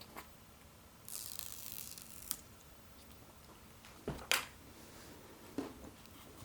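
Protective plastic film being peeled off a new smartphone: a soft tearing rustle about a second in, then a few light clicks and taps as the phone is handled.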